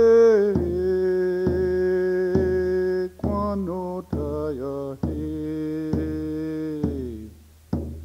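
A single voice sings long held notes over a steady drum beat of about one stroke a second. The voice fades out near the end while the drum carries on.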